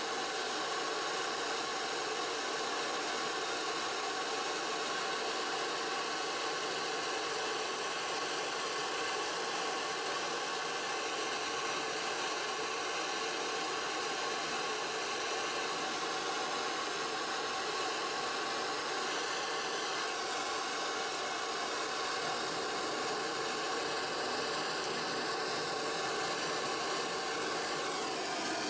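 Gas torch flame burning with a steady hiss, reheating a solder-tinned steel screw blank to sweat-solder a ring onto it.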